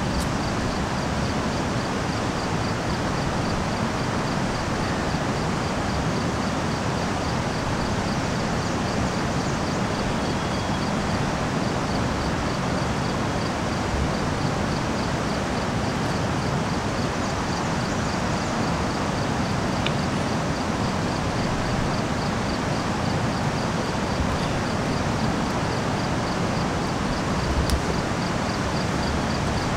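Steady, even rushing noise with no breaks, and a faint high ticking repeating at an even pace above it.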